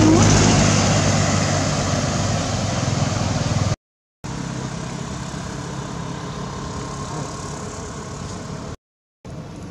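Vehicle engine running with a steady low hum, loudest at first and then fading. It is broken by two short silences, a little under 4 seconds in and near the end.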